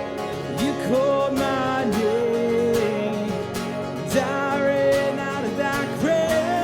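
Live worship band music between sung lines: guitars under a sustained melody line that slides and wavers in pitch.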